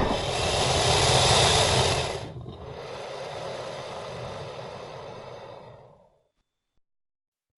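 Tail of a Godzilla-style monster roar sound effect: a hoarse, hissing rasp that drops in level about two seconds in and fades out by about six seconds, followed by silence.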